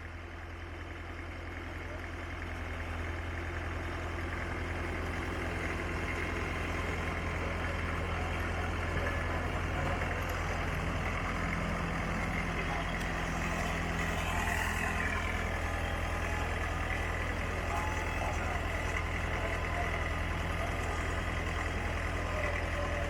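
Sawmill engine running steadily with a low hum, getting slowly louder over the first several seconds.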